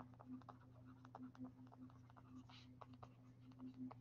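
Faint, irregular taps and scratches of a stylus writing on a tablet screen, over a steady low hum.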